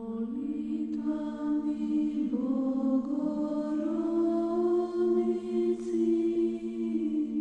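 Orthodox church chant: voices holding a steady drone note under a slow melody that climbs step by step.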